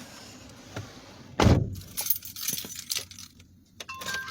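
Car keys jangling and clicking, with one heavy thump about a second and a half in. Near the end a steady electronic chime from the car's dashboard begins.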